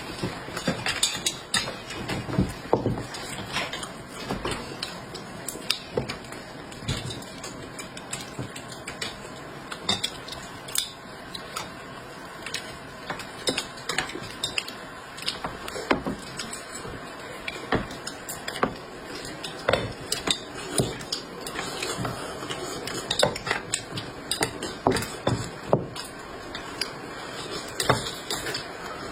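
Kitchen utensils and dishes clinking and knocking in irregular taps.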